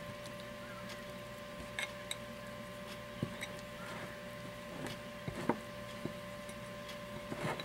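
Chicken slices being mixed and pressed into a dry breadcrumb-and-flour coating: faint scattered rustles and light taps, a few louder ones about two, three and five and a half seconds in. A steady appliance hum of several fixed tones runs underneath.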